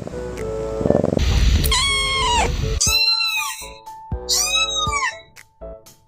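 Kitten meowing: about three high-pitched meows that rise and fall, starting about two seconds in, over background music.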